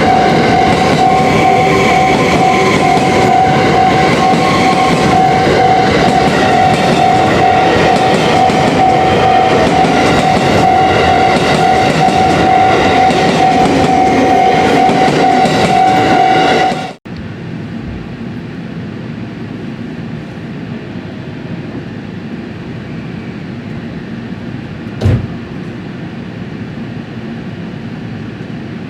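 A train running over a level crossing while the crossing's electronic warning bell rings a steady high tone over the rumble of the train. The sound cuts off suddenly about 17 seconds in, leaving a quieter steady background noise with one short click near the end.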